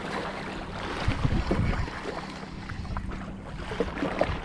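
Wind buffeting the camera microphone and water lapping against the shore rocks, with a faint steady low hum underneath and a few irregular thumps about a second in and near the end.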